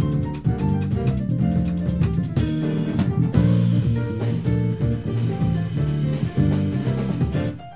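Live quartet of piano, electric bass, acoustic guitar and drum kit playing a jazz arrangement of a Brazilian choro.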